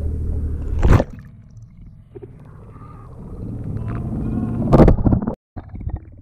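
Wind rushing over the microphone of a thrown, tumbling throwable camera. It starts with a sharp knock about a second in, then builds to loud buffeting and knocks near the end.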